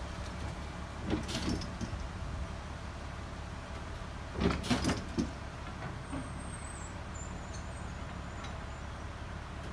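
A steady low engine hum runs under a few sharp metal clanks: one pair about a second in and a louder cluster about halfway through. The clanks come from the subway car's steel trucks and transport dollies being worked by hand.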